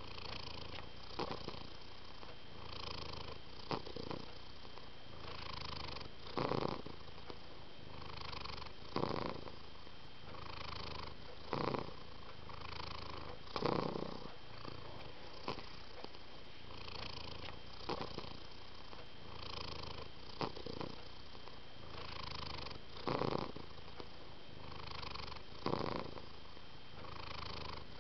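Domestic cat purring close to the microphone, a steady low purr that swells regularly with each breath, about every two to two and a half seconds.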